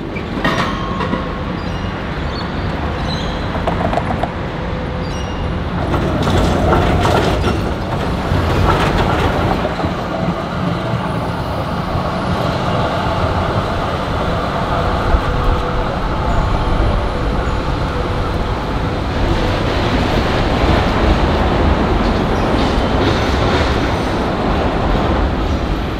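Melbourne tram running along street track past a stop, with steady rumble and rail noise from its wheels on the rails, over city street noise.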